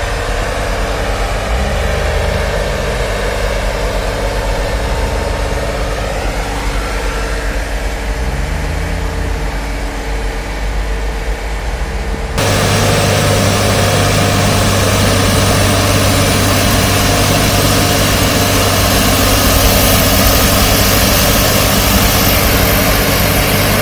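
Diesel engine of a snow-clearing wheel loader with a rotary snow blower running, its pitch rising and falling gently. About twelve seconds in the sound cuts abruptly to a louder, steadier engine hum with a strong hiss over it.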